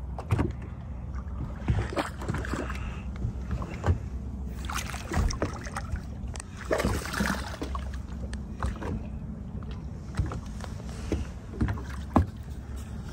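A hooked largemouth bass being fought and landed in a fishing boat: scattered short knocks and splashes over a steady low hum.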